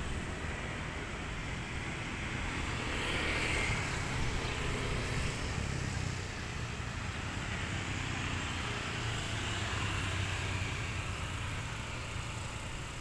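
Steady street traffic: cars and motorcycles passing, with no single vehicle standing out and gentle swells as they go by.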